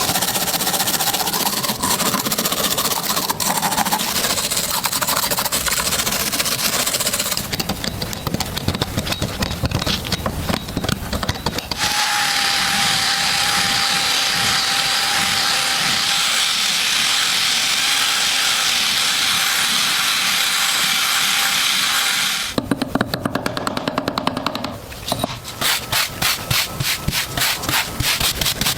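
Metal restoration work on rusted pistol parts: for about ten seconds in the middle, a small power tool runs with a steady whine and hiss. Near the end come fast, even rubbing strokes, about four a second, of an abrasive being worked back and forth.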